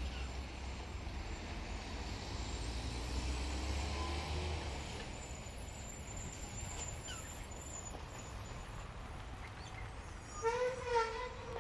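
Street traffic: a steady rumble and hiss of passing vehicles, heaviest in the first four or five seconds. About ten seconds in comes a short, wavering horn-like blare that lasts about a second.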